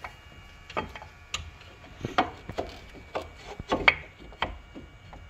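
Irregular clicks and knocks, about a dozen, as a Baer brake caliper with its pads is worked over a drilled and slotted rotor and seated on its mount.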